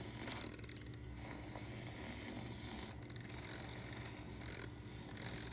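Electric milk frother running steadily, whisking milk and heavy cream to a medium froth, with a high hiss that comes and goes from about halfway in.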